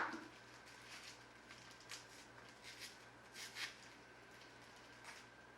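Faint handling noises: scattered small clicks and rustles of a small cardboard box and its packaging being handled, the loudest a couple of ticks about three and a half seconds in.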